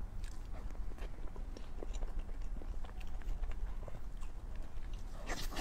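Close-miked chewing and wet mouth clicks of someone eating soft cream layer cake. A short, louder scrape comes about five seconds in.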